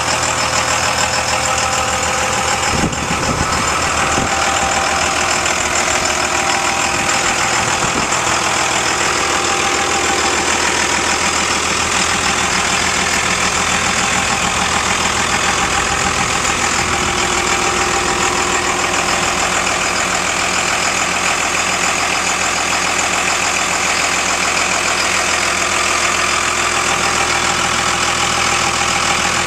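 A 1999 Dodge Ram 2500 pickup's engine idling steadily under a broad steady hiss, with a couple of brief knocks about three and eight seconds in.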